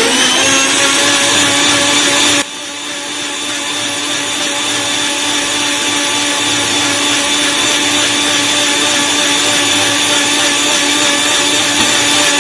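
Sujata mixer grinder motor running steadily at full speed, blending watermelon chunks, ice cubes and mint leaves into juice, with a steady high whine over the churning of the contents. The loudness drops abruptly about two seconds in, then slowly builds back up.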